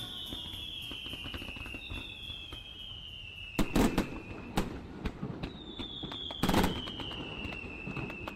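Fireworks going off: whistling rockets giving three long falling whistles of two to three seconds each, scattered crackling, and loud bangs a little over three and a half seconds in and again about six and a half seconds in.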